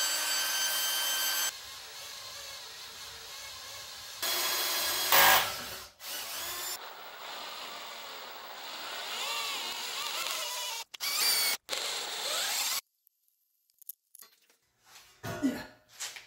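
Cordless drill boring through steel box section, its motor whining steadily and then running in several stretches as the bit cuts, stopping about 13 seconds in. A few short knocks follow near the end.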